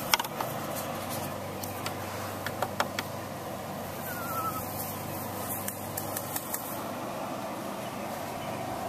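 A steady low mechanical hum, like a motor or engine running at a distance, with a few sharp clicks in the first three seconds and one short high chirp about four seconds in.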